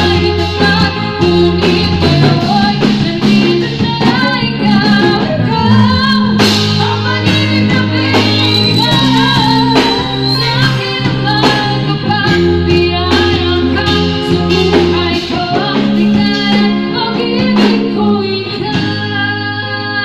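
Live band playing a song through a PA: two women singing into microphones over electric bass, drum kit and electric guitar.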